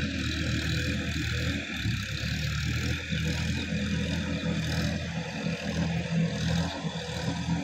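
Sonalika DI-50 RX tractor's diesel engine running steadily under load as the tractor works through a muddy paddy field, with a constant hiss above the engine note.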